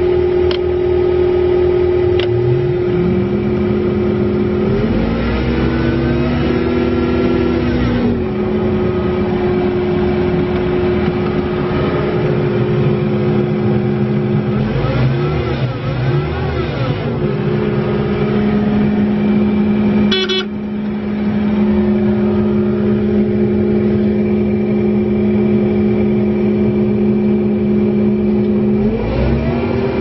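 John Deere 320D skid steer's diesel engine running fast, heard from inside the cab, revving higher and settling back three times. A couple of seconds in, the cab heater/AC blower fan spins up and then runs steadily under the engine.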